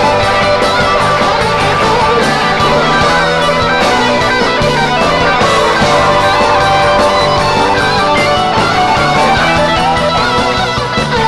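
Live rock band playing loudly through an instrumental passage: a bending electric guitar lead over a stepping bass line and steady drum beats.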